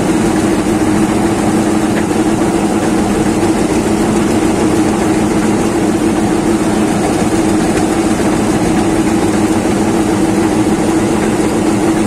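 Steady mechanical drone of a bulk feed truck's engine and intake auger running, drawing feed out of the silo's outlet.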